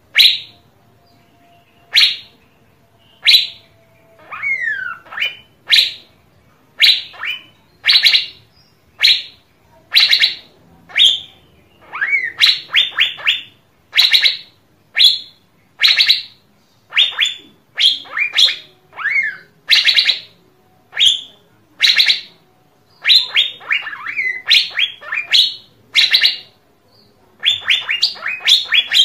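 Asian fairy-bluebird calling: loud, sharp notes about once a second, at times in quick runs of three or four, with a few downward-sliding notes among them.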